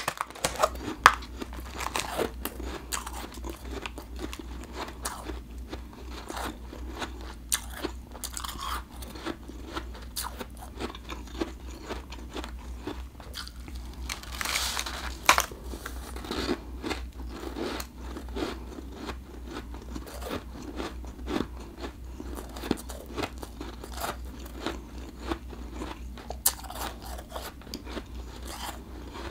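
Close-up crunching and chewing of refrozen blended powdery ice: a continual run of crisp, crackly bites, with one longer, louder crunch about halfway through.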